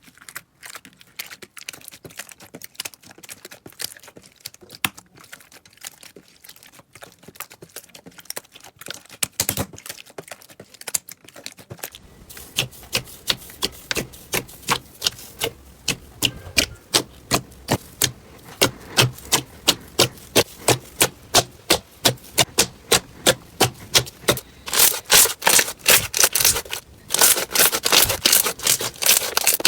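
Slime being worked by hand, making crisp clicking and crackling pops. About twelve seconds in the clicks become louder and regular, about two a second, with denser crackling near the end.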